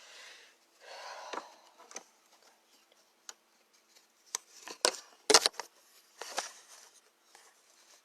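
Rustling and scraping, then a cluster of sharp knocks about four to five seconds in, the loudest two in quick succession.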